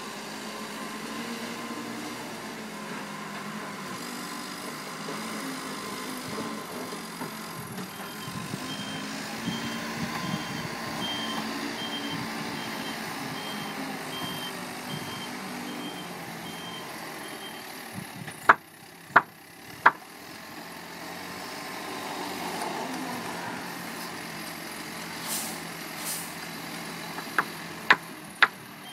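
Truck engine running while its reversing alarm beeps in an even series for about ten seconds, starting some eight seconds in. After the beeping stops come three sharp knocks in quick succession, then a few more near the end.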